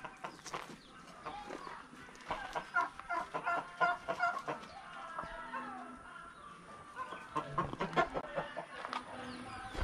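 Short, repeated clucking calls in two bouts a few seconds apart, mixed with scattered knocks.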